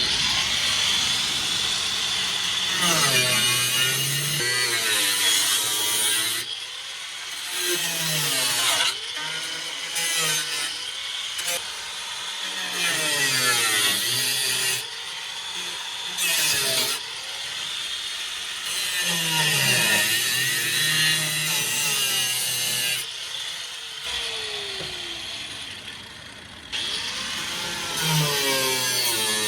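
Angle grinder cutting through car body sheet metal, in several separate stretches. Its motor pitch dips as the disc bites and climbs again as it frees, over a bright, hissing cut.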